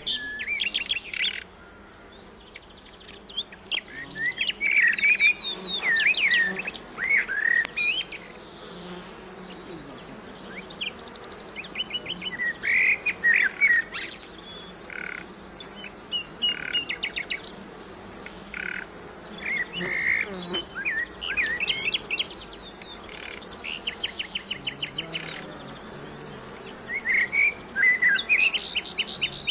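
Songbirds singing loud, varied whistled phrases and rapid trills, phrase after phrase, over the steady buzzing of honeybees at a hive entrance.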